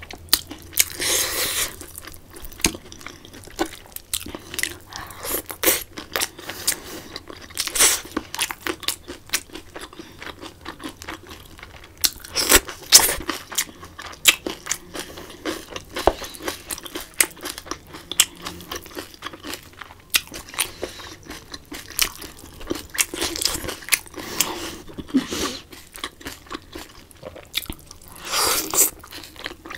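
Close-miked eating of glazed braised pork belly: steady chewing and crunching with many small wet mouth clicks, and several louder bites, the last one near the end.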